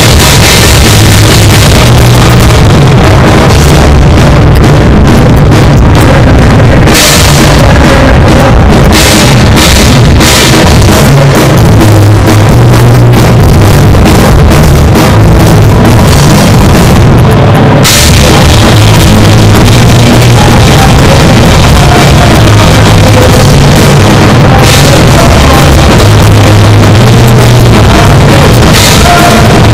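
Punk rock band playing live, heard from right at the drum kit: the drums and cymbals are loudest, with a bright cymbal crash now and then, over guitar and bass. Very loud, near the recording's maximum level.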